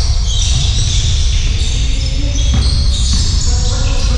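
Basketball being dribbled on a hard gym court during play, over a steady low rumble in the hall.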